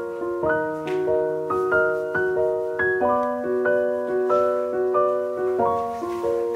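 Background piano music: single notes struck at an even, unhurried pace over held chords.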